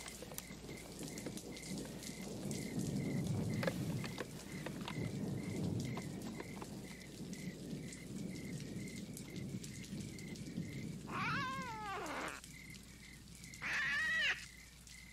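A cat meows twice near the end: first a long meow that falls in pitch, then a shorter one. Underneath is a steady rain-like hiss with scattered clicks and a faint, regular high beep.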